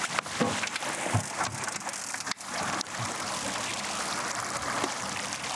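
Steady rush of wind and water on a boat moving slowly at sea, with the outboard motors running low underneath. A few sharp knocks come in the first three seconds.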